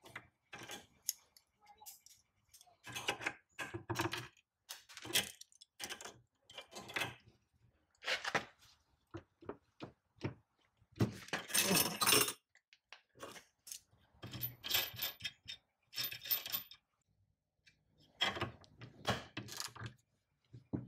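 Steel hand tools and bolts clinking and clanking: irregular runs of sharp metal clicks and knocks as pliers are set on torqued nuts and bolts and worked to break them loose.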